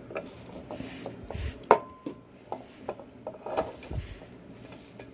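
3D-printed plastic parts rubbing and clicking as they are turned and fitted together by hand, with scattered light knocks; a sharper knock about a second and a half in rings briefly.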